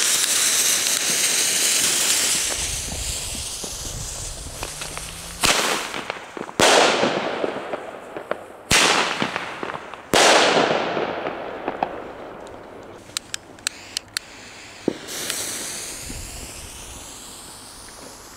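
A lit fuse hissing and spraying sparks, then four loud bangs from Titansalut firecrackers and Titanium airbombs, each echoing and fading away. Smaller cracks and one more sharp crack follow.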